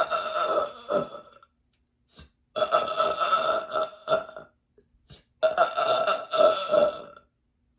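A woman burping loudly three times in a row, each burp long and drawn out, about a second and a half to two seconds. The burps are gas coming up after she has drunk a liter of fizzy sparkling water.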